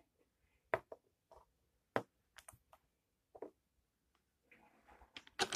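Plastic Lego bricks clicking as they are pressed onto a model and handled: several sharp, separate clicks, then a quick flurry of clicks and rattling near the end.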